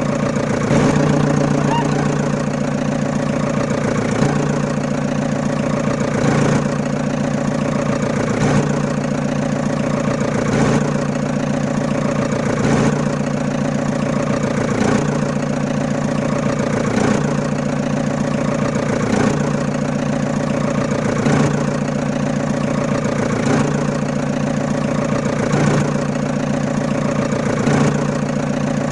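Steady engine idling sound with a regular swell that repeats about every two seconds, like a looped recording.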